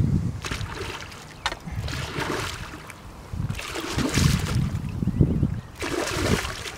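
A hooked pike of around 14 pounds thrashing at the surface in the shallow margin as it is drawn towards the landing net, several separate splashes.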